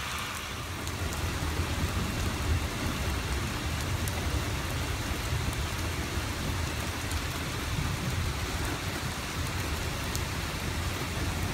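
Heavy rain pouring steadily, with scattered sharp drop hits and a low rumble underneath.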